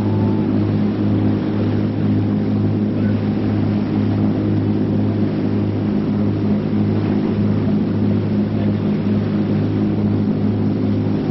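Catamaran's engines running steadily, a loud, even, deep hum.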